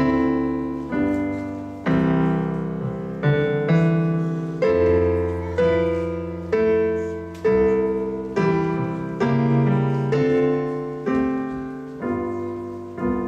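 Piano music: a chord struck roughly once a second, each ringing out and fading before the next, in a slow, even beat.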